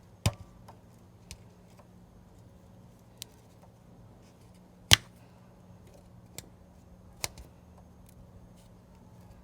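A handful of sharp, irregularly spaced taps, the loudest about five seconds in. They are the pivot pin of a Honda CRF300L footrest being tapped through its mounting bracket.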